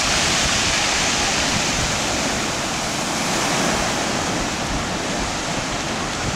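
Stormy sea surf breaking on the shore: a steady rushing wash of waves, a little louder near the start.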